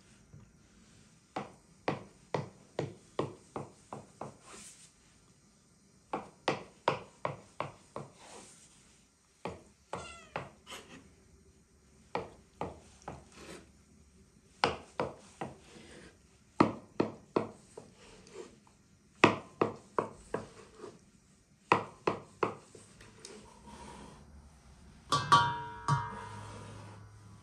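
Kitchen knife cutting through a round of fresh soft cheese and knocking on the wooden board beneath, in quick runs of sharp strokes about two a second with short pauses between. Plucked-string music comes in near the end.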